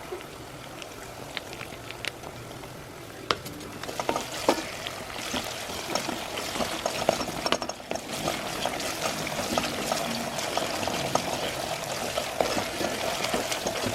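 Onions and garlic frying in a pot, sizzling, with a spoon stirring and knocking against the pot a few times; the sizzle grows louder about four seconds in.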